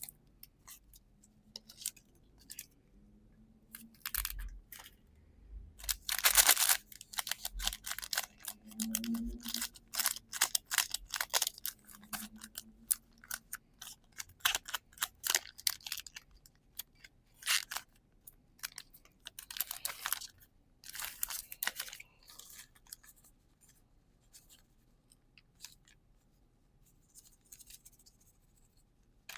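Trading cards and foil booster packs being handled close to the microphone: a run of sharp clicks, snaps and rustles as cards are slid and flicked and wrappers opened, with louder swishes about six seconds in and again around twenty seconds.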